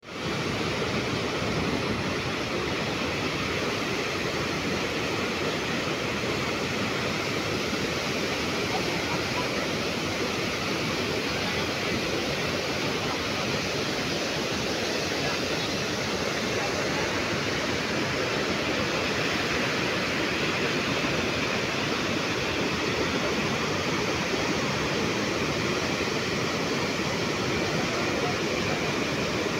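Water pouring over a concrete dam spillway and churning in the river below: a steady, unbroken rush of falling water.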